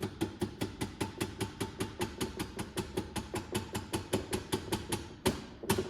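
Rubber mallet tapping lightly and rapidly on a Fox 40 fork's damper cap, about five taps a second, with two harder strikes near the end. The taps are trying to knock the cap loose, and it does not move.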